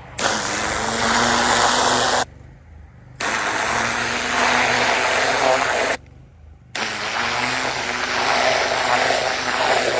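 Pressure washer with an oscillating tip spraying into soil in three bursts of two to three seconds each, each starting and stopping suddenly as the trigger is pulled and released. The washer's motor keeps running steadily underneath, heard in the short gaps.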